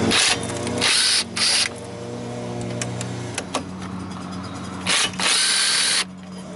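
Power tool undoing Torx 55 bolts on the brake assembly, running in several short bursts of a second or less, with a steady low hum underneath.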